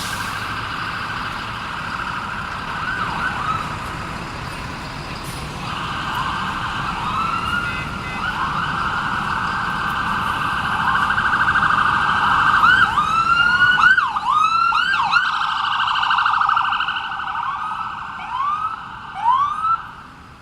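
Electronic emergency-vehicle sirens going, with many quick rising and falling sweeps that pile up and are loudest around the middle, then thin out and fade near the end.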